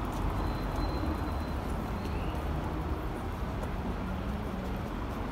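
City street ambience: a steady rumble of passing traffic.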